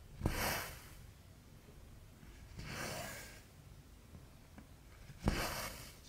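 Cotton thread drawn through 11-count cross-stitch fabric three times, about two and a half seconds apart. Each pull is a short rasping swish, and the first and last begin with a sharp tick.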